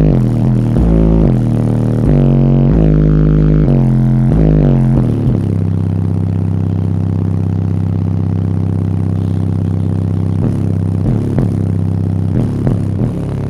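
Old-school bass music played loud through two Image Dynamics IDQ-12 subwoofers in a ported box tuned to 30 Hz. For about five seconds a pulsing bass line of short deep notes, then one long held deep bass note, with a few faint clicks near the end.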